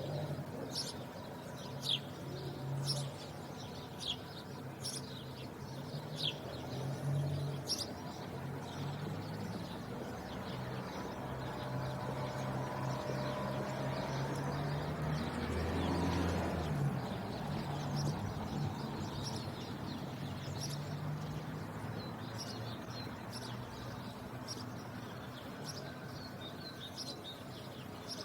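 Sparrows chirping: short, high single chirps scattered throughout, thicker near the start and toward the end, over a steady low background hum that swells around the middle.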